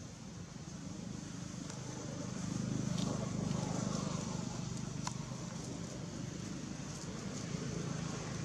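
A low, steady engine hum that swells a little about two seconds in and then holds, with a few faint clicks.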